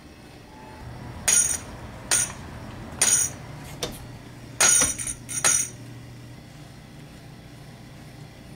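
Footsteps: six sharp clicks with a metallic ring, evenly spaced a little under a second apart, stopping a little past halfway.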